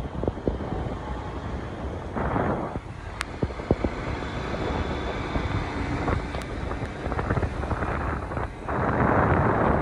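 Bajaj Pulsar 220F motorcycle riding through heavy rain: wind buffets the microphone over a steady low rumble of engine and wet-road noise, with two louder gusts, about two seconds in and near the end, and scattered sharp clicks.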